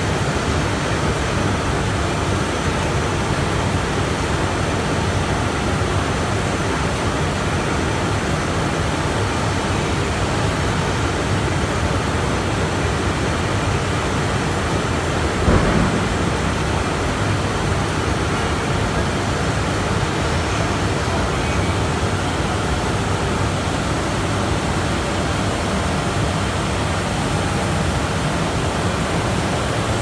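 Mesh-belt veneer dryer running: a steady, loud rushing noise from the machine, with one brief louder bump about halfway through.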